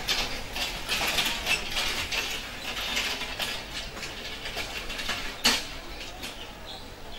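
Metal hand cart rattling and clattering as it is pushed along a paved lane, with one sharp clack about five and a half seconds in.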